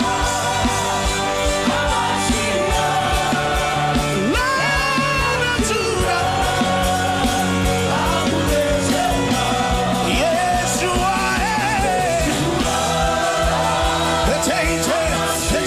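Live church worship music with sustained chords and a steady beat, with voices singing and wailing over it in travailing, groaning prayer.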